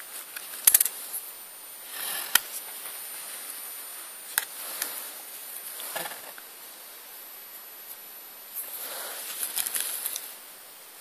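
Handling noise from a compact camera and its battery: a few sharp plastic clicks and taps scattered through, with soft rustling in between that grows busier near the end.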